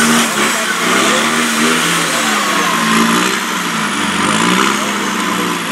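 Land Rover Defender off-road trial truck's engine revving up and falling back again and again as the driver works the throttle to crawl the truck over boulders.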